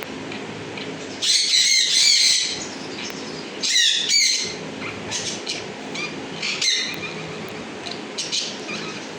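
English budgerigars chattering and warbling in bursts, loudest in a long run of squawky calls a little over a second in and another about four seconds in, with shorter calls after, over a steady low hum.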